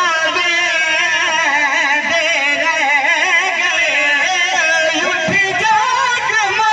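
A man's voice chanting a masaib lament through a microphone, in long wavering held notes with ornamented turns and heavy vibrato.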